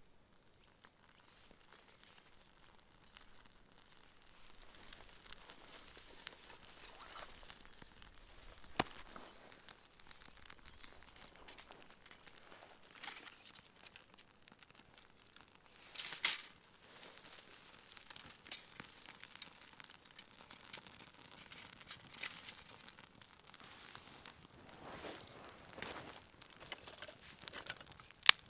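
Small campfire of birch bark and dry twigs catching and crackling, with light pops and the rustle of twigs being laid on. A louder rush of crackling comes about halfway, and a single sharp crack just before the end.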